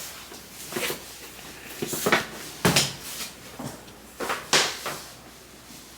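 A series of knocks and clunks from things being handled and set down in a small room, about six of them spread over a few seconds, the loudest near the middle.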